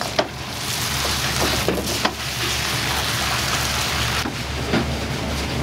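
Wok station at full heat: a steady loud hiss of the gas burner and frying, broken by several sharp metal clanks of the ladle against the wok, over a low steady hum.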